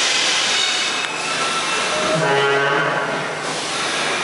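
R46 subway trains standing at an underground station platform, giving a steady, loud din. About two seconds in, a low, steady drone comes in from the trains.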